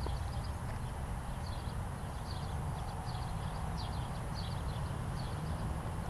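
Outdoor ambience: small birds chirping repeatedly in short high notes over a steady low rumble.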